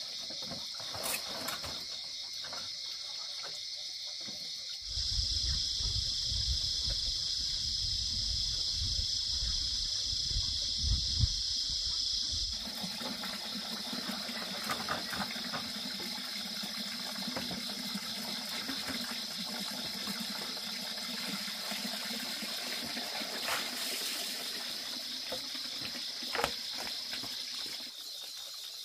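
Night insects chirring steadily in a continuous high band, with water running and splashing into a plastic basin. A low rumble joins for several seconds partway through, then gives way to a steadier low hum with a few clicks.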